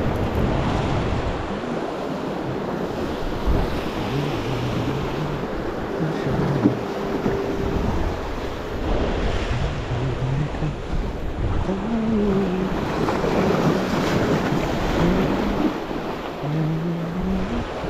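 Ocean surf washing and breaking over jetty rocks, with wind buffeting the microphone.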